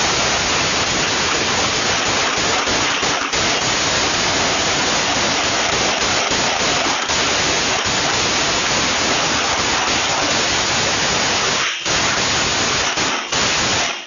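Loud, steady hiss like static or heavy rain, starting abruptly and briefly dipping about 12 and 13 seconds in.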